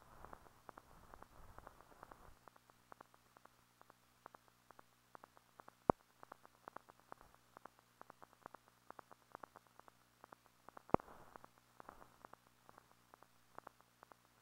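Surface crackle of an old silent film transfer: irregular faint clicks and ticks several times a second over a faint steady hum, with two louder pops, one about six seconds in and one about eleven seconds in.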